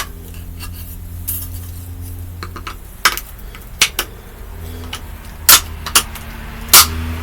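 Sharp clicks and knocks of cheap ceiling fan parts being handled and pried apart, about six of them in the second half, over a steady low hum.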